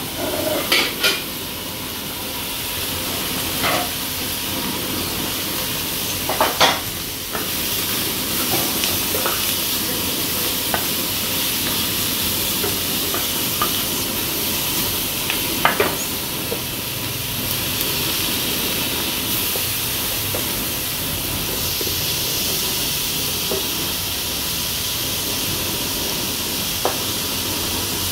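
Seafood stir-fry with red onion and tomato sizzling in a frying pan as it is stirred with a wooden spoon, with a steady hiss and a few short clicks and knocks as it is stirred.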